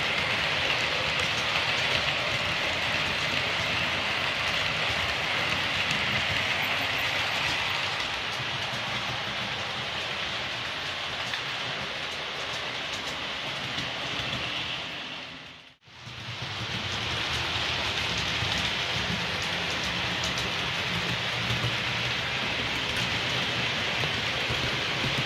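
Hornby OO gauge HST model train running on the layout: a steady hiss-like rumble from its wheels on the rails and its motor. It dips out briefly about sixteen seconds in, then carries on.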